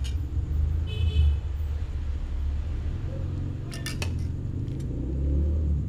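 Metal pot and spoon clinking against a glass plate while noodles are turned out: one short ringing clink about a second in, then a quick cluster of clicks and scrapes around four seconds in, over a steady low rumble.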